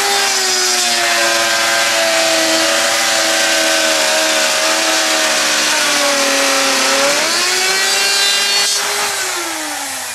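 Electric router with a 1/4-inch straight bit running at full speed while it cuts a groove through plywood. Its motor pitch sags during the cut and rises again about seven seconds in. Near the end it is switched off and winds down with falling pitch.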